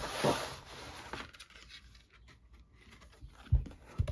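Board game components and packaging being handled on a table: a rustle in the first second or so, quieter handling, then two soft knocks as pieces are set down near the end.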